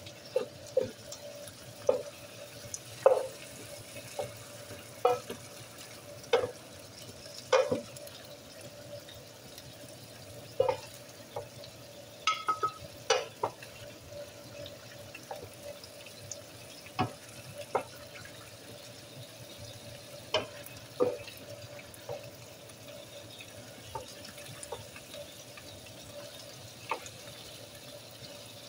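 Wooden spoon stirring diced chicken in an electric skillet, knocking and scraping against the pan in irregular strokes every second or two. Underneath, the chicken simmers in its own watery juices, with a faint steady hum.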